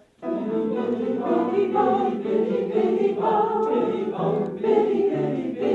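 An amateur, non-auditioned choir singing together, all coming in at once just after the start on a count-in.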